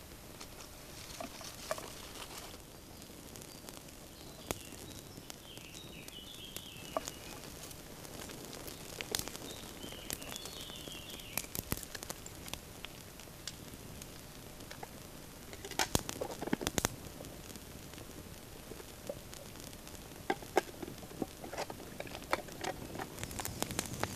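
Scattered small clicks and taps, with a dense cluster about two-thirds through and more toward the end. A bird sings two short chirping phrases in the background, about a quarter and about halfway through.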